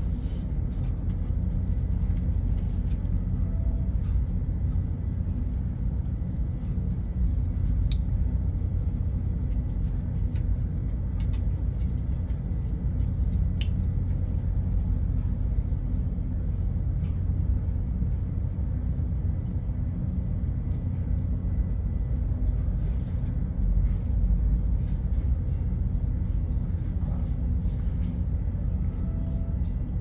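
Steady low rumble of a ship's machinery, with a faint steady hum above it and a few small clicks.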